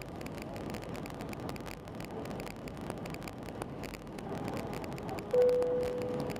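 Airbus A320 cabin noise during the descent to landing: a steady rush of airflow and engine noise. About five seconds in, a single clear tone starts sharply and then fades over about a second.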